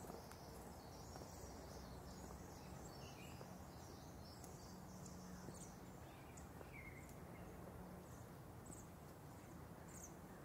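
Faint, steady low hum of a streetcar in motion, heard from inside the car, with scattered short, high chirps over it.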